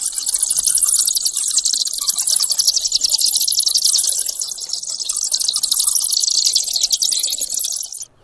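Loud, shrill insect chorus, a rapidly pulsing high-pitched buzz, that cuts off sharply just before the end.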